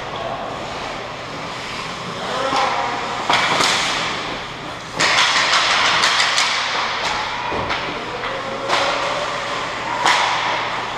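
Ice hockey play at close range: skate blades scraping and carving the ice in hissing bursts, the loudest and longest about halfway through, with sharp clacks of sticks and puck.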